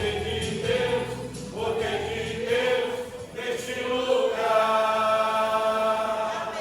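A group of voices singing a Portuguese gospel song, settling into one long held note about four and a half seconds in.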